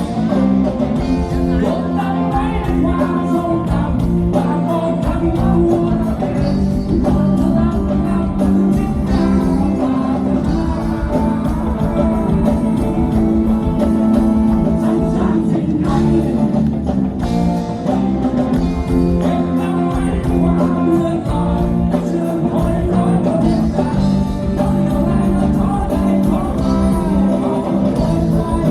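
Thai rock band playing live through a PA: guitars and drums with a singer over them.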